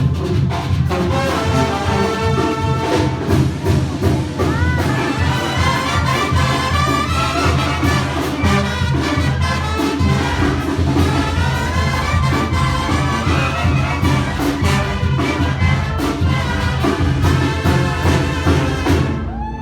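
Mexican banda brass band playing: trumpets and trombones over a deep bass line and drums with a steady beat. The music breaks off abruptly just before the end.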